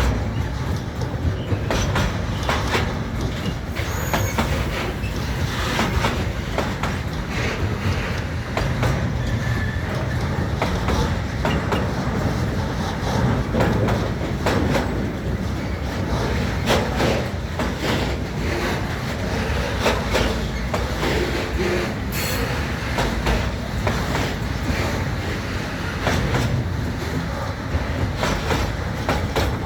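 Freight train wagons rolling past as the train pulls away, with wheels clicking over the rail joints under a steady rumble and a few brief wheel squeals.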